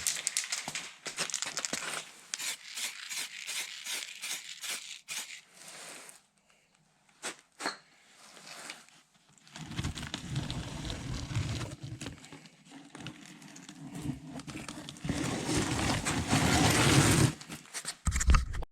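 Aerosol lacquer spray can: first shaken, its mixing ball rattling in quick clicks, then sprayed in long hissing passes with a short pause between them.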